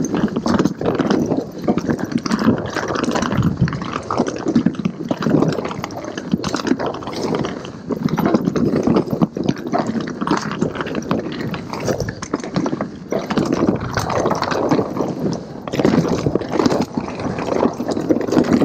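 Mountain bike rolling fast down a dirt forest singletrack: knobby tyres crunching over dirt and roots, with the bike's chain and frame rattling over the bumps.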